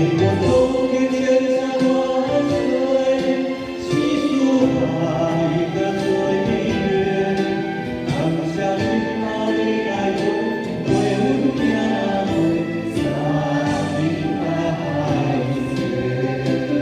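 Music with a choir singing sustained chords.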